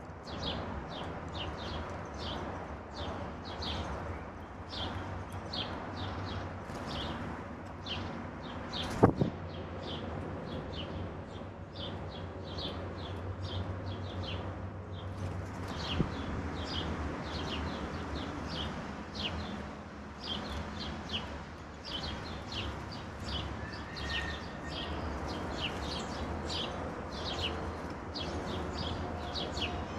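Garden songbirds chirping with many short, high calls, one after another, over a steady low rumble. A sharp, loud knock sounds about nine seconds in, and a smaller one about sixteen seconds in.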